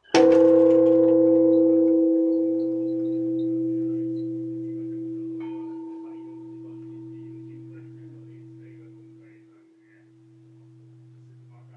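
Japanese temple bell (bonshō) struck once with a wooden beam, then ringing out and slowly fading for over ten seconds, with a low hum that wavers as it dies away.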